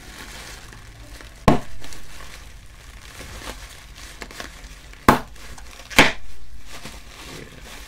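Plastic air-cushion packing pillows crinkling as they are twisted and squeezed by hand, with three sharp pops as pillows burst: one about a second and a half in, two more about five and six seconds in.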